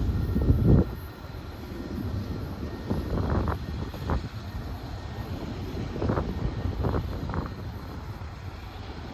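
Low, steady rumble of a Union Pacific manifest freight train rolling along the line, with a handful of short, louder knocks through the middle.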